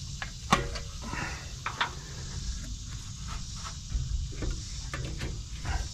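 A rubber radiator hose being handled and pushed onto a radiator outlet: scattered short knocks and rubbing clicks, the sharpest about half a second in.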